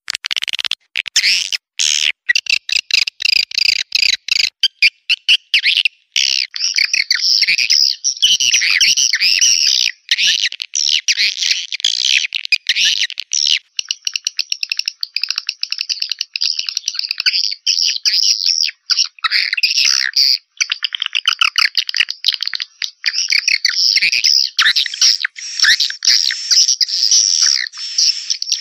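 Swiftlet lure-call recording: dense, rapid chirping and twittering of swiftlets, opening with a quick train of sharp clicks and briefly dropping out a few times. It is the calling sound played from swiftlet houses to draw the birds in to roost and nest.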